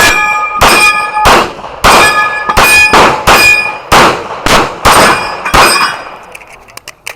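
Handgun firing about a dozen rapid shots, roughly two a second, most followed by a bright metallic ring, typical of hits on steel targets. The shooting stops about six seconds in, and a few faint clicks follow.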